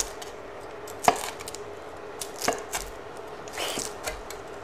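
Cleaver slicing through a deep-fried five-spice roll on a bamboo cutting board: a few sharp knocks of the blade on the board, the loudest about a second in, and a longer crunch of the crisp fried tofu-skin wrapper near the end.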